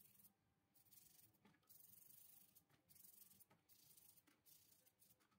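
Very faint toothbrush scrubbing on skateboard bushings in soapy water: short bouts of bristly hiss broken by pauses, with a few light clicks.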